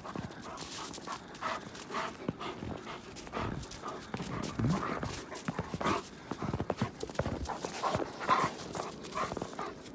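Two wolves play-wrestling at close range: a run of short growls and snarls mixed with irregular scuffling of paws and bodies in snow.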